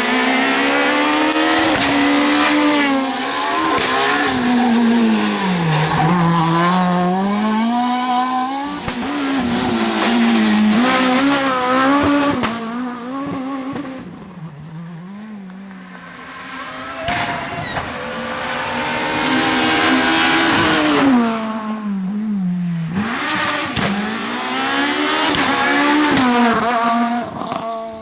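Renault Clio S1600 rally car's high-revving 1.6-litre four-cylinder engine at full throttle, loud, its note climbing and dropping over and over as it accelerates, changes gear and brakes. It falls quieter and lower around the middle and again shortly before the end, then climbs back up.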